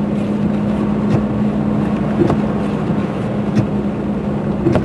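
Chevrolet Silverado pickup driving through snow, heard from inside the cab: a steady engine and road drone, with a faint knock repeating about once a second.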